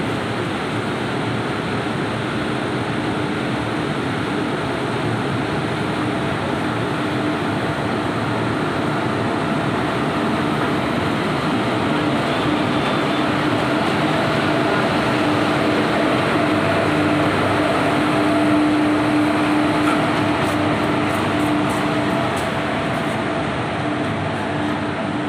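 Electric locomotive and passenger coaches rolling slowly past at close range: a steady rumble of wheels on rail with a steady hum, growing a little louder past the middle and easing toward the end.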